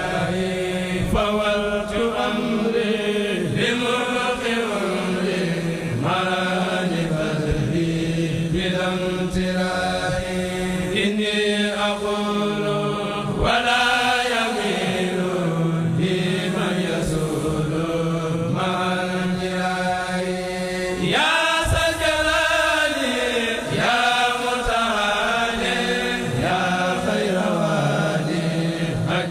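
A Mouride kourel, a group of men, chanting a xassida religious poem in unison. The melody rises and falls in long phrases over a steady low held note.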